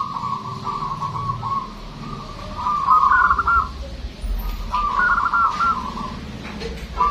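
Zebra dove (local perkutut) singing: rolling, warbled cooing phrases repeated about every two seconds.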